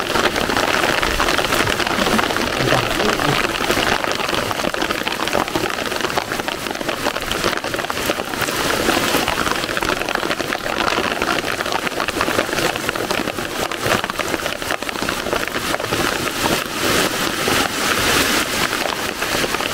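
Heavy rain pouring onto open water, a steady dense hiss of countless drops hitting the surface.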